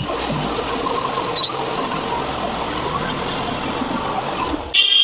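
Portable band sawmill running, its band blade cutting through a log with a steady, loud, noisy whine and squeal. Near the end the sound changes suddenly to a more even, higher-pitched machine tone.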